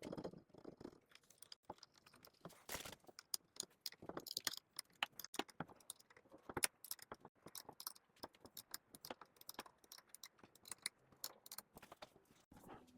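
Faint, irregular metallic clicks and clinks from handling the pins and fittings of a potter's wheel's adjustable legs.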